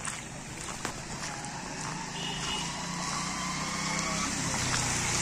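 Motorcycle engine running as it rides through floodwater on the road, approaching and growing steadily louder.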